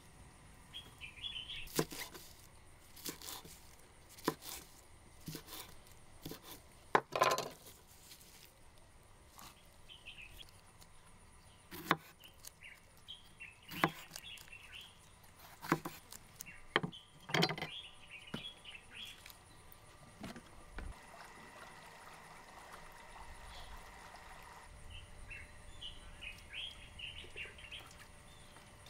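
About ten sharp knocks or clicks at irregular intervals, one about seven seconds in longer and louder than the rest. Short high chirps come in several brief clusters between them.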